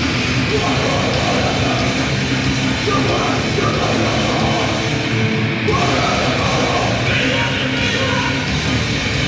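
Grindcore band playing live, a loud, dense wall of heavy music that stays steady throughout.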